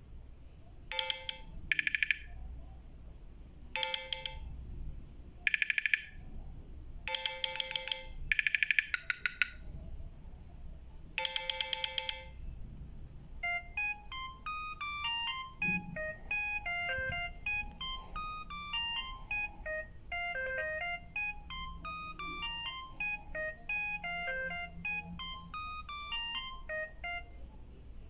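Alcatel OT-2005D ringtones playing from a Samsung GT-B7722i phone's loudspeaker. First comes a buzzy beeping ringtone of short bursts in uneven groups. Then, from about halfway, a different ringtone plays a quick melody of short electronic notes.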